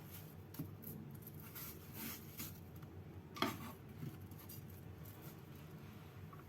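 Faint kitchen handling sounds: dishes and utensils lightly clinking and scraping, with one sharper knock about three and a half seconds in.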